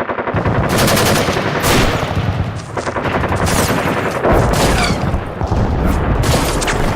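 Rapid, continuous volleys of gunfire-like bangs and crackling over a steady low rumble, loud and dense throughout, like a battle of machine-gun fire.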